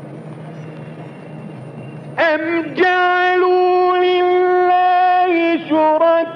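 A man's voice in live melodic Quran recitation: about two seconds in, after a low background hum, it enters loudly and holds one long, steady high note, with a brief break in the note near the end.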